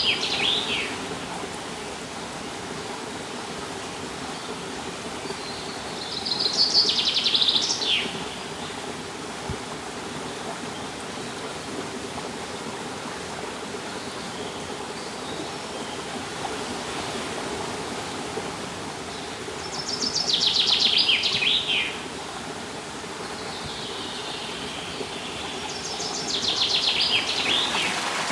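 A songbird singing a short, fast trilled phrase that falls in pitch, four times with long pauses between, over the steady sound of running water.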